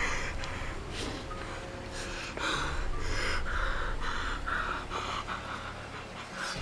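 A man panting and gasping in quick, heavy breaths, a few each second, as if in panic or struggling for air.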